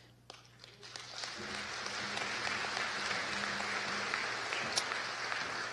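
Audience applauding, building up about half a second to a second in, holding steady, then tailing off near the end.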